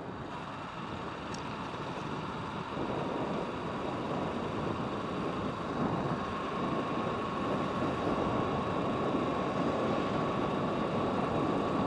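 Wind rushing over the microphone and road noise of a motorcycle riding at speed, with a steady high hum that sets in a second or so in; the noise grows slowly louder.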